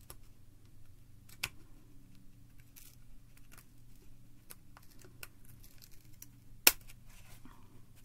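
Small pick tool picking and prying at an iPod Mini's metal casing and internal retaining clip: scattered faint crunchy clicks and scrapes. Two sharp clicks stand out, one about a second and a half in and a louder one near the end.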